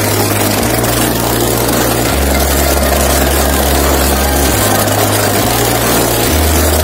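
Motorcycle engine running steadily as the bike rides around the pit floor, over a deep hum that shifts pitch in steps every second or two.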